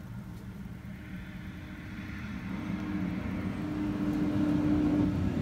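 A motor vehicle's engine running low and growing steadily louder, with a steady hum coming in about halfway.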